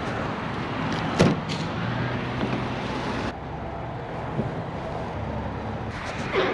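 Steady vehicle running noise with a low hum, dropping to a quieter level about three seconds in, with a sharp knock about a second in and another near the end.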